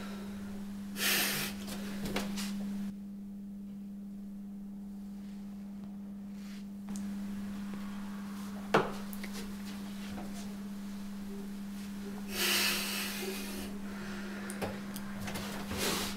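A wooden interior door being handled, with a few brief rustles and one sharp click about nine seconds in, over a steady low hum.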